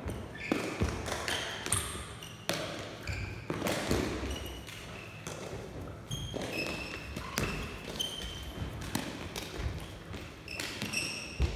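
Sneaker squeaks and scattered thuds of footsteps on a sports-hall floor, echoing in the hall.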